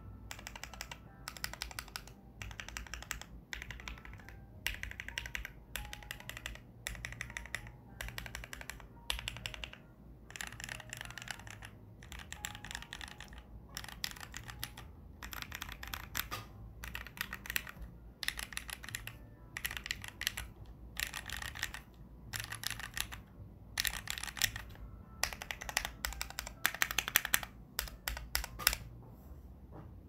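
Tofu65 custom mechanical keyboard being typed on in short runs with brief pauses: lubed Gateron Ink Black V2 linear switches on a polycarbonate plate under ePBT keycaps. The keystrokes are loudest in the last few runs and stop near the end.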